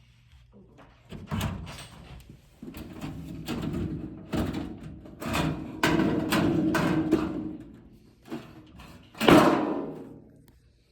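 Stainless steel range storage drawer being worked on its side rails: clicks and knocks, then sliding and rattling of metal on metal, with one loud bang about nine seconds in.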